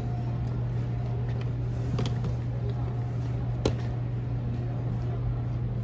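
Steady low machinery hum, with two short light taps about two seconds and three and a half seconds in.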